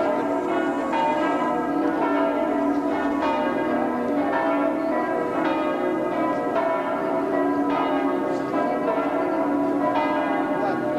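Church bells ringing, a fresh stroke about once a second over the hum of earlier strokes.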